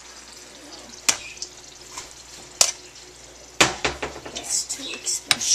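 Metal spoon stirring meatballs in tomato sauce in a cooking pot, clinking against the pot once about a second in and again a little later, then clinking repeatedly in the last two seconds.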